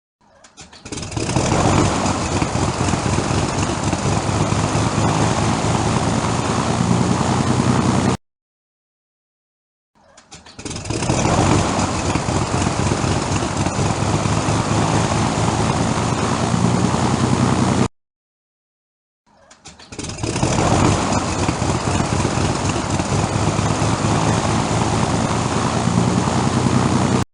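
Propeller aircraft engine starting, three times over: each time a second or so of coughs builds into a steady run of about six to seven seconds, which then cuts off abruptly.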